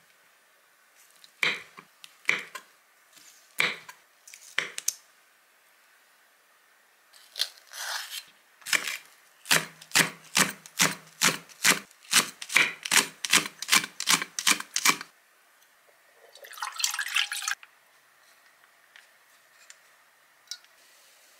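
A kitchen knife cutting on a wooden cutting board. A few separate cuts go through rolled fish cakes, then an even run of quick chops, about two and a half a second, slices a green onion. A short rustle follows near the end.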